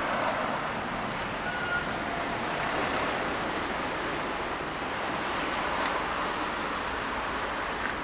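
Road traffic passing, a steady wash of tyre and engine noise with no single engine standing out.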